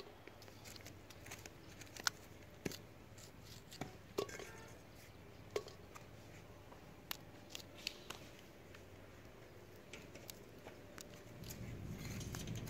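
Scattered crisp snaps and clicks as flat green bean pods are picked off the plants by hand, coming irregularly about once or twice a second. A low rumble swells near the end.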